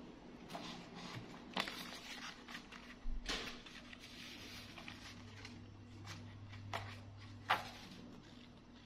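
Paper pages of a large picture book being flipped and handled by a monkey, faint rustling with a few sharper page flaps, the loudest near the end.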